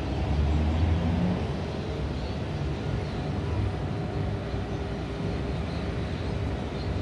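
Distant city traffic: a steady low rumble, a little louder in the first second or so.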